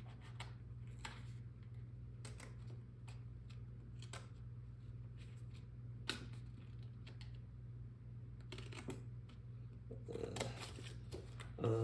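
Scattered light clicks, snips and scrapes of hands and small tools working at a scale-modelling bench while decals are prepared, over a steady low hum.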